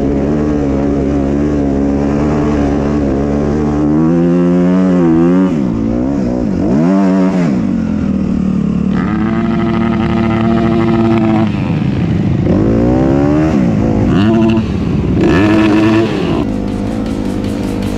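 Dirt bike engine running under throttle, steady at first, then revving up and dropping back sharply twice as the rider works the throttle. It eases off near the end.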